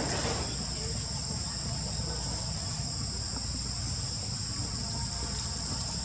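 Steady chorus of insects: a constant shrill buzz at two high pitches that never lets up, over a low background rumble.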